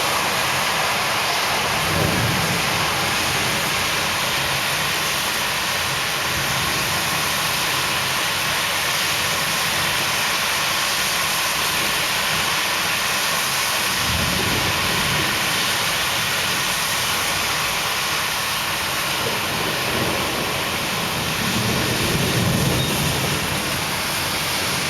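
Steady heavy rain during a thunderstorm, with low rumbles that swell and fade about two seconds in, around the middle and near the end.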